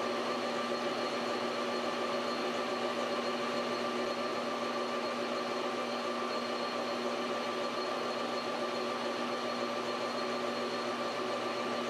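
Metal lathe running steadily as its cutter takes light finishing passes to turn a taper on a copper tip. Its motor and drive hum with a few constant tones.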